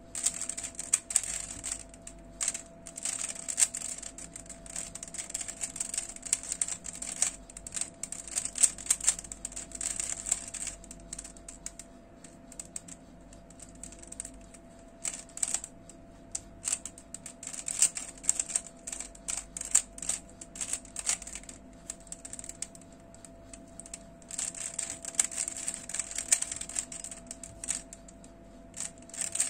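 Stickerless plastic 3x3 puzzle cube being turned quickly by hand: rapid clicking and clattering of the layers, in runs with short pauses between them.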